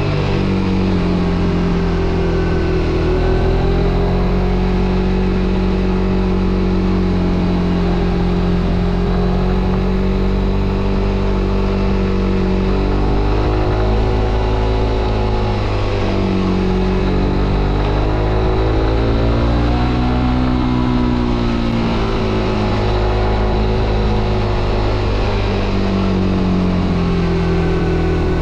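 Suzuki GSX-R125's single-cylinder engine running under way, holding steady revs, with pitch dips and rises about halfway through as the throttle changes, over a steady hiss of wind and road noise.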